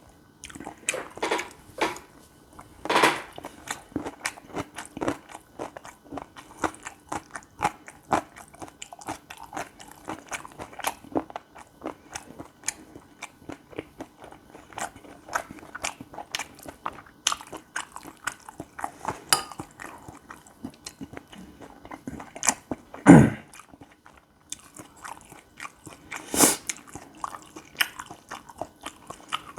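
Close-miked chewing of gopchang fried rice, stir-fried rice with grilled intestines: a steady run of wet mouth clicks and smacks. A few louder clicks and knocks stand out, about three seconds in and twice near the end.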